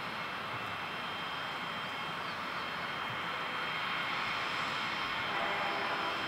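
Aircraft engines running: a steady rush with a thin high whine, growing slightly louder through the second half.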